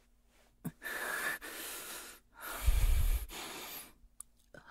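A man breathing close to the microphone: two long, breathy exhalations, the second also blowing onto the mic with a low rumble.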